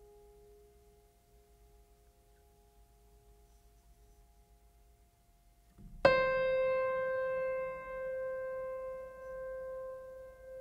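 Background music on a piano: a faint held chord, then one loud note struck about six seconds in that rings on and slowly fades.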